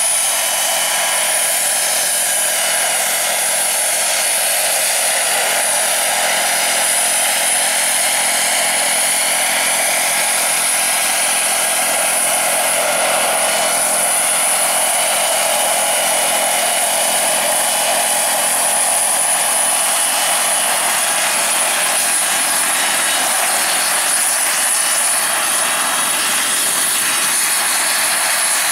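Small turbine engine of an XXL radio-controlled EC-120 scale model helicopter, running steadily with a thin, high-pitched whine over the noise of the turning rotor while the model hovers low and sets down on the grass.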